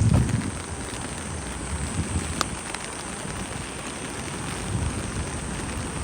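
Steady rain falling, with a low thud right at the start, a softer one about two seconds in, and a single sharp tick a little before halfway.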